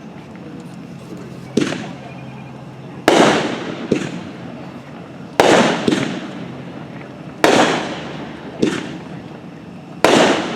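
A 300-gram gender reveal consumer firework cake firing: about seven sharp bangs come one every one to two seconds, each trailing off in an echo.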